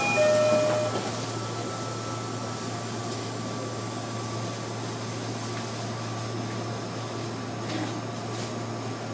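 Steady hum of a stopped 305 series electric multiple unit heard from inside the car, its fans and auxiliary equipment running with no motor tones.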